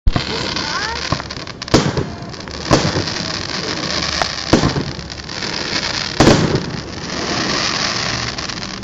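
Fireworks display: four loud, sharp bangs of aerial shells bursting, a second or two apart, with a few smaller pops between them, over a steady hiss.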